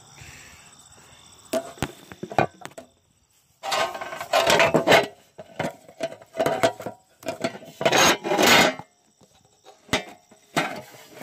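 Phone handling noise: fingers rubbing and knocking on the phone and its microphone in irregular scrapes and taps.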